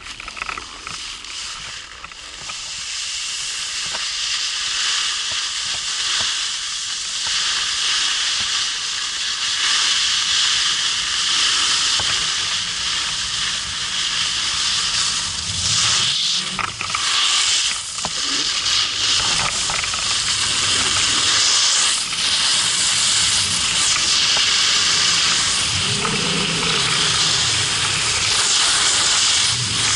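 Snowboard sliding and carving down a groomed slope: a steady hiss of the board scraping over packed snow, building up over the first few seconds as it gathers speed, with a few brief low rumbles.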